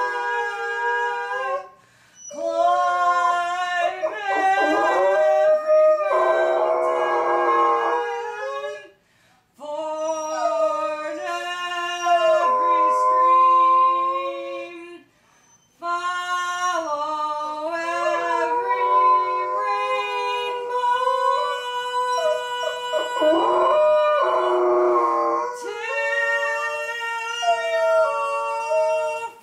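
Golden retriever howling in long, wavering notes along with a woman singing slow, held notes, the two voices overlapping. The phrases break off for short pauses three times.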